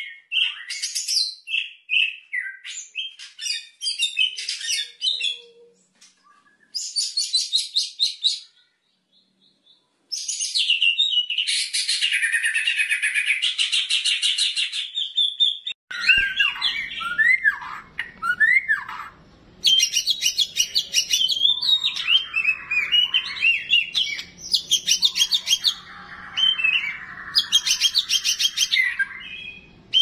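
White-rumped shama (murai batu) singing loud, rapid rattling trills mixed with slurred whistles. These are its long, coarse 'tembakan' (shot) phrases, the song type that contest judges favour. There is a pause of about a second and a half partway through, and from about halfway the song has a low background noise beneath it.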